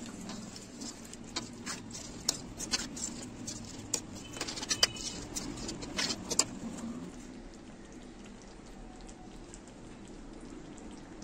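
Chicken in cream sauce cooking in a metal karahi: irregular sharp clicks and pops for about the first six seconds while the mixture is stirred and sizzles, then it settles to a steadier, quieter simmer.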